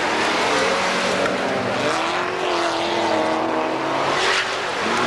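Several race cars' engines revving at once, their pitches rising and falling as the drivers accelerate and lift off.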